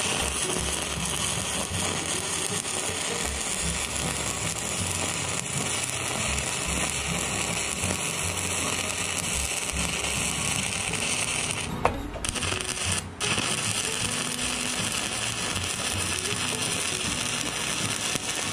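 Stick welding arc burning a Lincoln 7018 electrode at about 85 amps on steel plate: a steady crackling sizzle. It briefly drops out twice, about twelve and thirteen seconds in.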